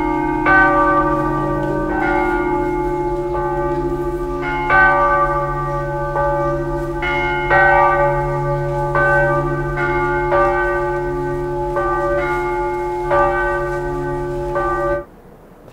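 Church tower bells ringing, rung by rope, with a new strike about every second and a half over their steady lingering hum. The peal cuts off suddenly near the end.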